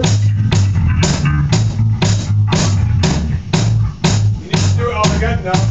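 Live rock band playing an instrumental passage: electric guitars over a bass guitar line and a drum kit keeping a steady beat of about two hits a second.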